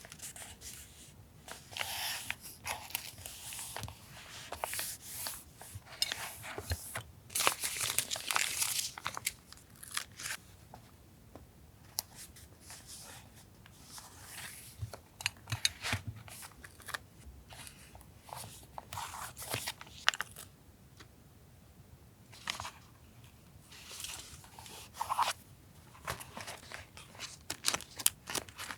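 Paper being torn, crinkled and handled in irregular bursts, with small sharp clicks and taps between them.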